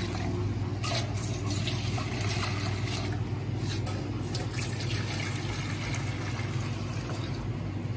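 Water being poured from a steel vessel into a steel bowl of curd, trickling and splashing as the mix is thinned into lassi, over a steady low hum from a running air cooler.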